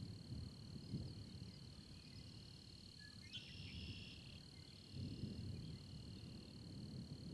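Insects trilling steadily in a high, even drone, with a short burst of chirping a little past three seconds in. Under it, low rumbling swells rise and fade, from the storm outside.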